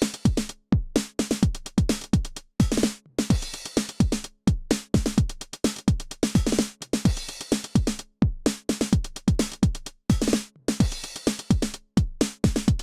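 Behringer RD-9 drum machine, a TR-909-style analog unit, playing a steady four-on-the-floor techno beat at 128 bpm. A kick drum with a falling-pitch thump lands on every beat, with hissing cymbal and snare hits between.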